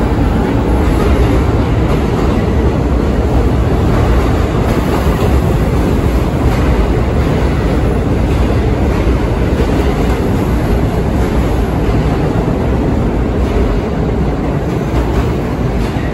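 New York City Subway train running through the station at speed: a loud, steady noise of wheels on rail that fades near the end as the train pulls away into the tunnel.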